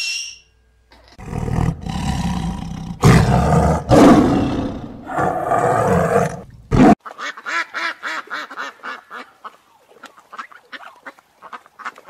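A blue-and-yellow macaw gives one short squawk, then a tiger roars in several long, loud calls. These are followed by a rapid series of short calls, several a second, that grows fainter toward the end.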